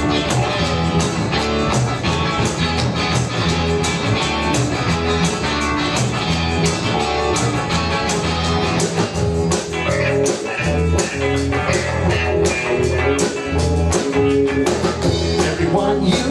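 Live band playing an instrumental break of an up-tempo blues-rock song: guitar lead over a steady bass and beat, with no singing.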